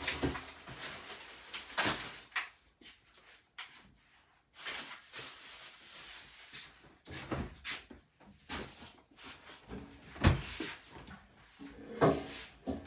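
Kitchen clatter: scattered sharp knocks and bangs of things being handled and set down, the loudest about ten seconds in.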